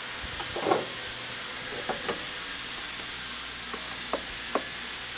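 A handful of light clicks and knocks from a small metal electrical box being opened and its wiring handled, the fullest knock about a second in and sharper clicks later, over a steady background hiss.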